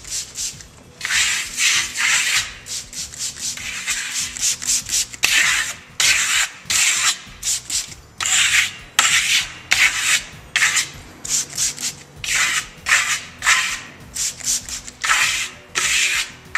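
Steel trowel scraping across damp clay plaster in repeated sweeping strokes, roughly one a second with short pauses between them. This is hard-trowel compression of freshly misted American Clay plaster, with the blade still picking up a little clay.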